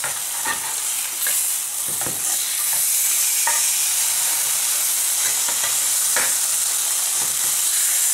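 Two fish fillets sizzling steadily in hot oil in a nonstick frying pan as they are turned over. The sizzle gets a little louder about three seconds in, and there are a few light scrapes and taps from the spatula.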